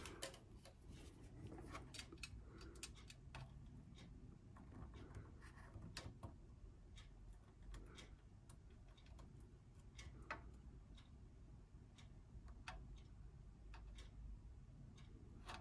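Near silence with faint, scattered small ticks from soldering a metal RF shield onto a circuit board, as the iron tip and solder wire touch the shield.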